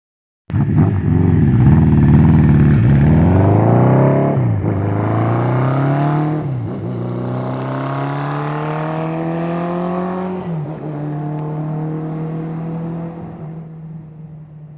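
Honda CB650 cafe racer's air-cooled SOHC inline-four, through a four-into-four exhaust, accelerating hard through the gears, its note rising three times with quick breaks at the upshifts. It then holds a steady note and fades as the bike rides away.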